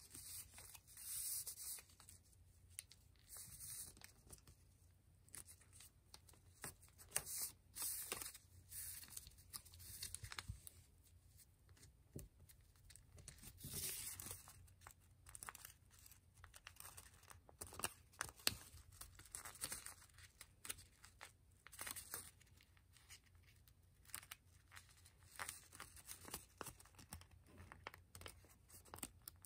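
Faint, irregular rustling and crinkling of thin kami origami paper as it is folded and creased by hand, with short crackles every second or so.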